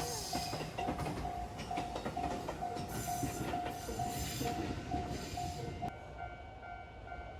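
Japanese level-crossing warning bell ringing at about two strokes a second over the rumble and rail clatter of a passing train. Both the bell and the train noise drop away about six seconds in.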